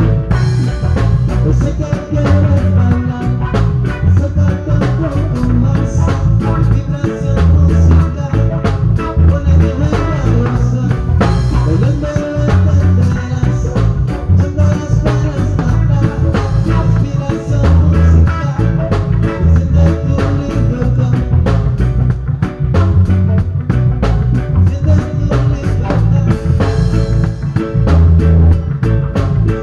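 Live band playing a reggae song: drum kit, guitar and a heavy bass line on a steady dance beat.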